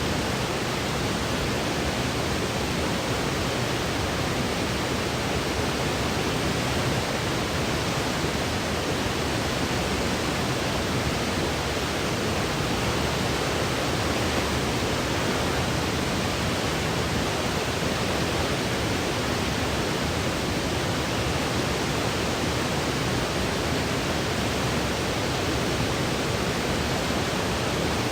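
Steady, unbroken synthetic noise for sleep, an even hiss with its energy spread evenly and a little stronger in the lower range.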